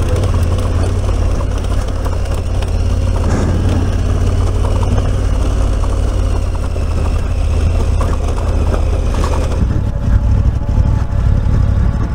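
Large adventure motorcycle engine running steadily, a loud low drone; about ten seconds in the sound turns rougher and more uneven.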